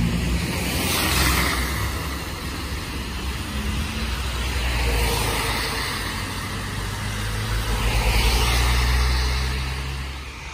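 Cars passing one after another on a wet road, their tyres hissing through the water under a low engine rumble. Three passes swell and fade: about a second in, around the middle, and loudest near the end.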